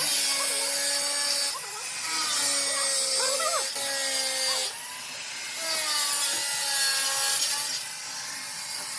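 Sawing or rasping on a waste pipe in three long runs of steady scraping, each a couple of seconds, with short pauses between them.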